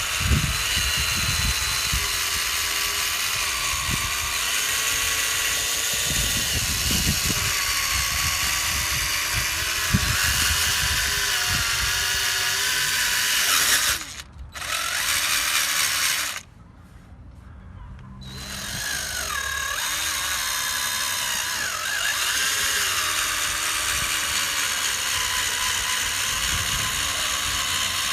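Electric drill spinning an 800-grit sanding disc, wet sanding a plastic headlight lens, running steadily with its pitch wandering as pressure changes. It cuts out briefly about halfway through, stops again for about two seconds, then spins back up and runs on.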